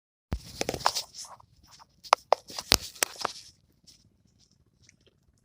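A quick run of knocks, clicks and rattles with a few short ringing tones, lasting about three seconds.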